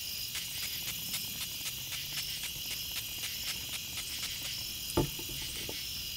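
Steady chorus of crickets chirping, with short spritzes from a pump butter-spray bottle and a single knock about five seconds in.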